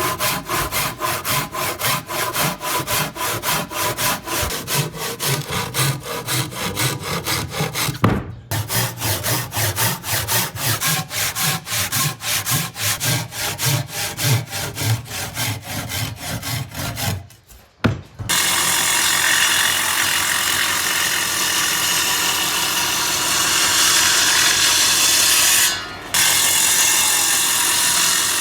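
A hand saw cuts wood in quick, even strokes, about four a second, with a short break about eight seconds in. After about eighteen seconds a power tool takes over, running steadily on wood and dipping briefly near the end.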